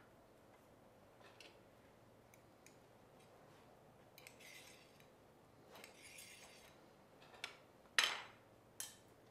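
Metal skewer scraping and clinking on a ceramic plate as grilled mushrooms are pushed off it: a few light clicks, two short scrapes, then two sharp clinks near the end, the first of them the loudest.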